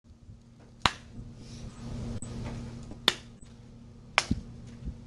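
Hand clapping a slow rhythm: three sharp single claps, the second about two seconds after the first and the third about a second after that. The claps mark out musical note values, a long held note and then a half-length one, over a faint low hum in the room.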